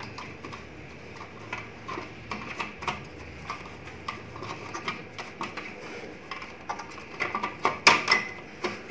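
Scattered light clicks and knocks of the HP LaserJet M1005 MFP printer's plastic housing as its front cover is fitted, with a quicker run of louder clicks near the end as the cover's lower catch goes into place.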